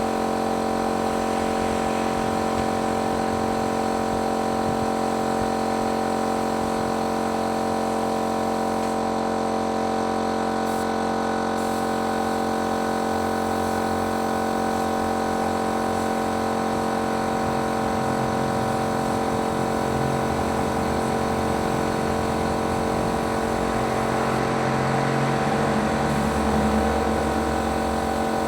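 Electric paint-spraying machine running steadily with a constant motor hum, some extra low rumble joining it in the second half.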